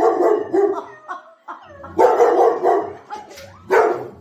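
A dog vocalising in a string of barks and wavering, pitch-bending whines, a sign of the dog being unhappy.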